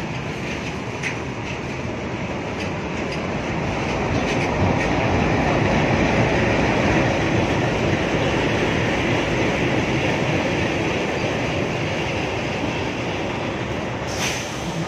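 An arriving express passenger train passes on the platform line. The diesel locomotive's engine and wheels are loudest as it goes by about six seconds in, then the coaches' wheels rumble and clatter over the rail joints. There is a sharp clank near the end.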